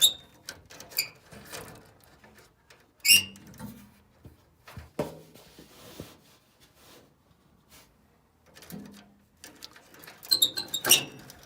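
Scattered short, high squeaks and sharp clicks, a few strokes spread out with a quick cluster of them near the end.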